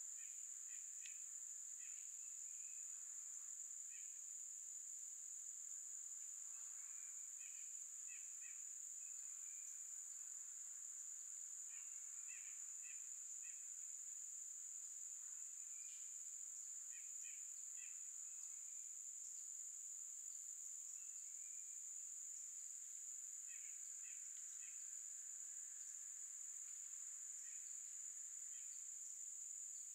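Steady high-pitched drone of insects in a summer forest, with short chirping calls, likely birds, in small groups of two to four every few seconds.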